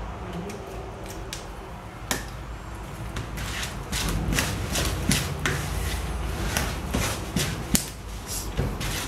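Wooden spoon beating thick cake batter in a plastic bowl, knocking and scraping against the bowl in quick rhythmic strokes, a few a second, that start about two seconds in and pick up pace.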